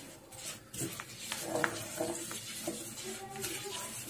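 Spatula stirring and scraping a sticky mass of roasted sesame seeds and melted sugar around a nonstick pan, in irregular scrapes and small clicks. The sesame is being mixed into the caramel for chikki.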